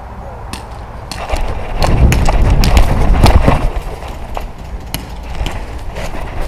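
Quick footfalls on grass with clothing and gear rustling close to the microphone as a person runs. Heavy thumps are loudest from about one to four seconds in, then give way to lighter steps and clicks as the runner slows and crouches.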